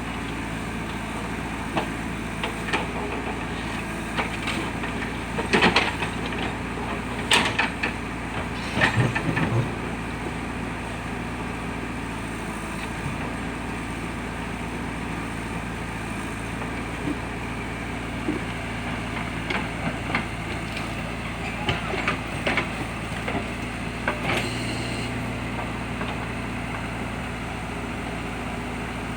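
JCB backhoe loader's diesel engine running steadily, with scattered sharp knocks bunched about six to ten seconds in and again about twenty to twenty-five seconds in.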